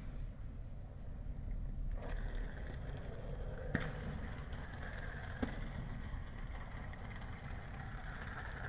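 Fidget spinner spinning with a steady whirring rattle that grows fuller about two seconds in, with two light clicks.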